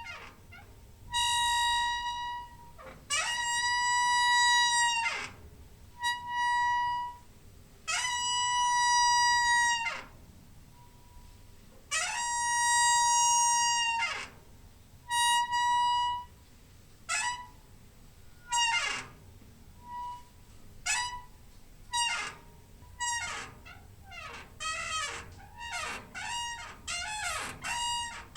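Door hinge squeaking as a door is swung back and forth: long drawn-out creaks of about two seconds, each gliding in pitch at its start and end around a steady high tone, alternate with short squeaks. In the last few seconds the squeaks come quickly, several a second.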